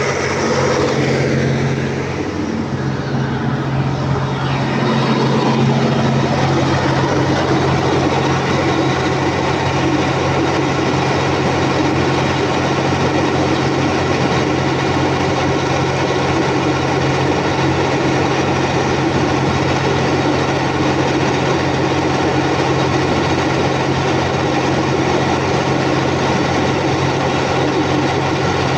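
Volvo Penta TAD1341GE inline six-cylinder turbo diesel running steadily after a fresh top overhaul, with a brief dip in level about two seconds in.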